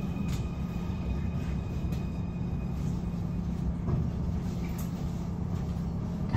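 Munich U-Bahn Type C2 train running: a steady low rumble of wheels on rail with a faint steady motor hum.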